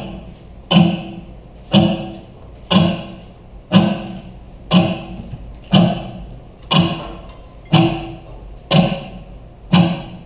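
A steady beat of single drum-like strikes, about one a second, each ringing briefly with a low pitched tone.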